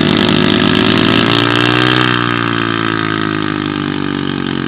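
Off-road vehicle engine revving hard while stuck in a mud bog. Its pitch climbs for about two seconds, then slowly eases off.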